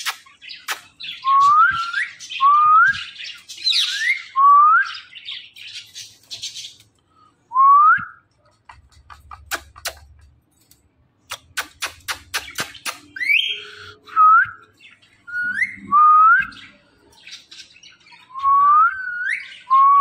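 Caged Indian ring-necked parakeet giving a run of about ten short whistles, each sweeping sharply upward, mixed with harsher chatter. Rows of quick sharp clicks come in between.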